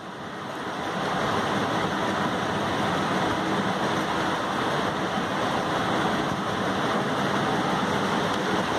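A 1000 W electric shock fishing machine, a transformer-based high-voltage unit, running during its firing test: a loud, steady rushing noise. It drops sharply at the very start, as the knob is worked, and builds back up over about a second.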